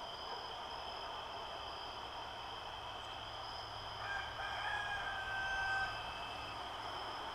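A rooster crowing once, a drawn-out call of about two seconds starting a little past the middle, over a steady high-pitched background drone.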